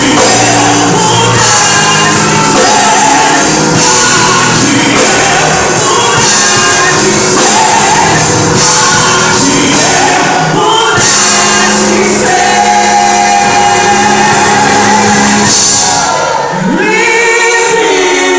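A live gospel worship song: singing over a full band, loud and continuous, with a brief drop about 16 seconds in before a held sung note.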